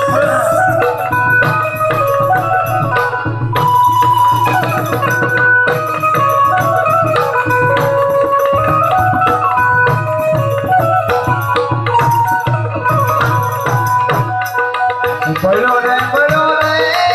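Gujarati santvani devotional folk music played instrumentally: a harmonium melody moving in held, stepped notes over steady tabla and small hand cymbals.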